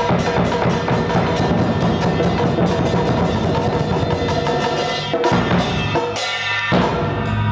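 Music with dense, fast drumming over steady ringing tones, cutting off abruptly at the very end.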